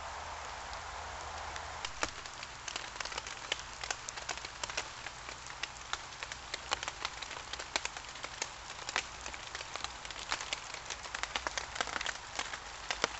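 A steady hiss gives way, about two seconds in, to irregular sharp taps of raindrops hitting a tarp overhead.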